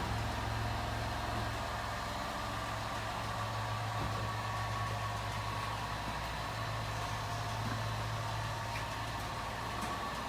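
2011 Ford Escape's 3.0 L V6 idling steadily, its exhaust leak freshly welded up so it runs without the leak's noise.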